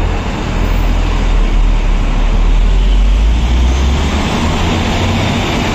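Bus driving through a road tunnel: a steady low engine rumble mixed with road noise.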